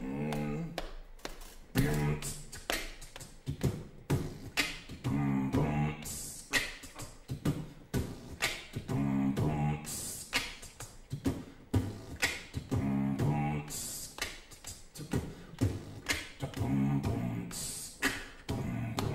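Beatboxing into a microphone: a rapid run of sharp mouth clicks and hits forming a beat, with a short low pitched vocal phrase returning every few seconds.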